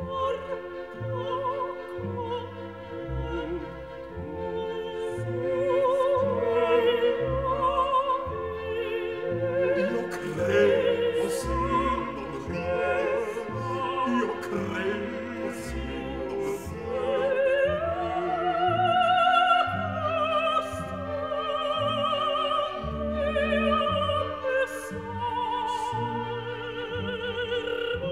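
Background music in an operatic style: a soloist with wide vibrato over orchestral accompaniment, with a regular beat in the bass.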